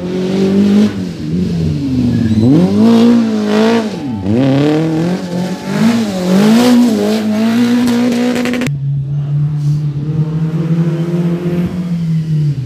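Renault Clio rally car taking a tight corner at race pace: the engine note dips and climbs several times as the driver lifts off, changes gear and accelerates away. About two-thirds of the way in the sound changes abruptly to a steadier, lower engine note of another rally car.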